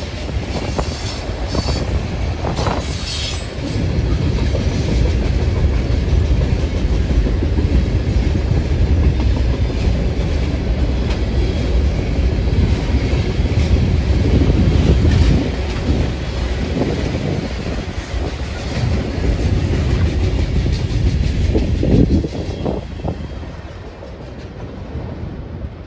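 Freight train's boxcars rolling past close by: a steady low rumble with the wheels clacking over the rail joints, and a brief high wheel squeal in the first few seconds. The noise drops off near the end as the last car passes.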